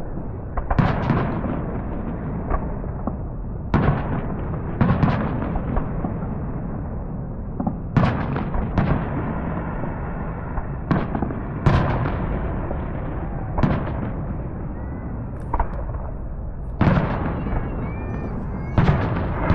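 Fireworks going off: a dozen or more sharp bangs at irregular intervals, some in quick pairs, over a steady background of more distant crackling and rumbling.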